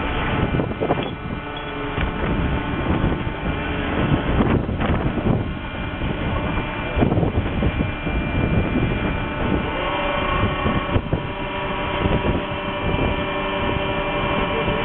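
A boat engine running steadily under wind noise, with a few thumps.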